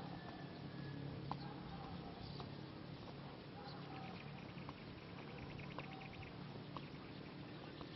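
Faint open-air ambience: short distant bird calls and a brief chirping run over a steady low hum, with a few sharp taps.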